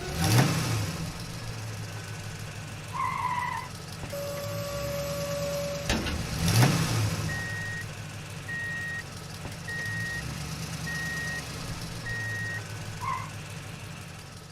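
Vehicle engine sound effect running steadily, with two quick revs, a few short honk-like tones and a reversing beeper beeping five times, about once a second, in the second half.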